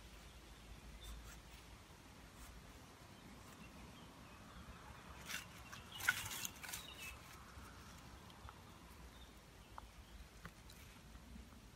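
A stick of wood cracking and snapping as it is split apart with a fixed-blade knife, the Schrade SCHF36, in a short cluster of cracks about halfway through. The rest is faint outdoor quiet.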